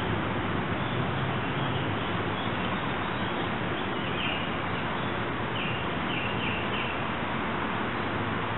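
Birds chirping, with a quick run of three chirps about six seconds in, over a steady outdoor rushing noise.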